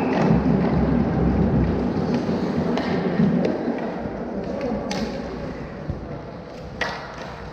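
Hockey rink ambience: a murmur of voices, louder over the first three seconds, with sharp knocks about three, five and seven seconds in.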